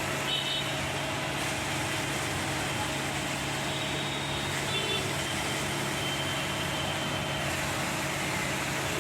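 Transit mixer truck's diesel engine running steadily with a constant hum. A few short high-pitched chirps sound over it, about half a second in and again around five seconds.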